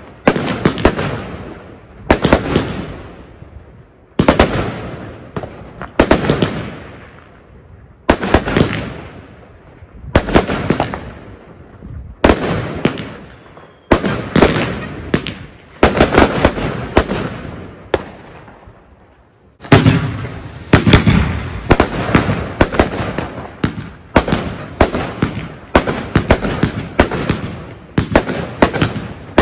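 Argento Fora firework battery firing a sharp bang about every two seconds, each trailing off into crackling. About two-thirds of the way through, after a brief pause, the Argento Akira battery starts and fires faster, about two shots a second.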